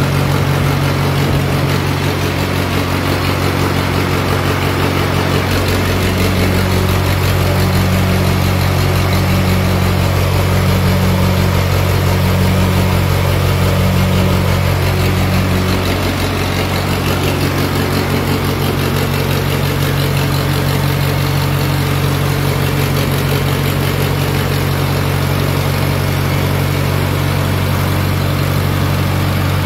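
Floating-feed pellet extruder driven by a 35 hp diesel engine, running steadily. From about six to sixteen seconds a pulsing throb, about once a second, rides on the steady drone.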